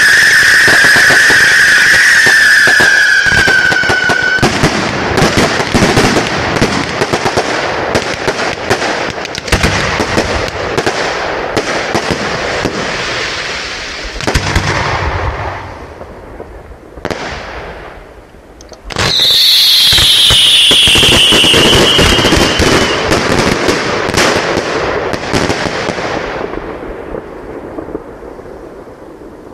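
Fireworks going off: a loud whistle sliding slightly down in pitch over hissing sparks for the first few seconds, then dense crackling that dies away past the middle. About two-thirds of the way in a second, higher whistle starts abruptly and slides down over about four seconds, followed by crackling that fades toward the end.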